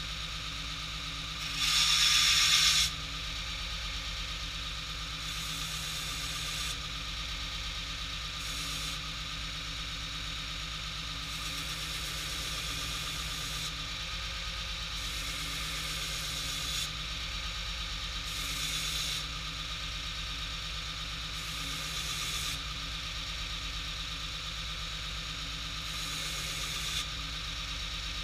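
A 2x72 belt grinder runs steadily while a small metal bracket is pressed against the belt again and again, each pass a short burst of grinding. The loudest pass comes about two seconds in.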